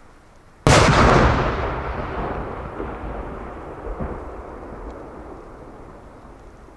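An aerial firework shell bursting: one sharp boom just under a second in, followed by a long rolling echo that fades over several seconds, with a fainter thump about four seconds in.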